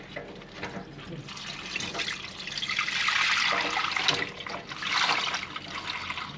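Water being poured out and splashing into a sink basin, loudest from about two to four and a half seconds in, with a second swell around five seconds.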